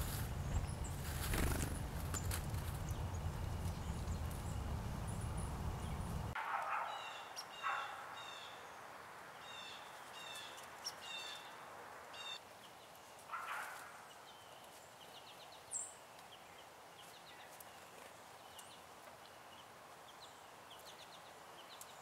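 A songbird in the background singing short whistled notes repeated three or four at a time, with a few sharp taps. For the first six seconds a low rumble covers it, then the background turns much quieter.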